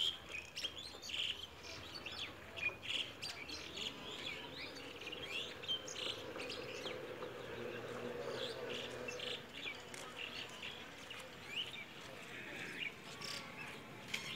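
Small birds chirping, many short, quick calls overlapping without a break.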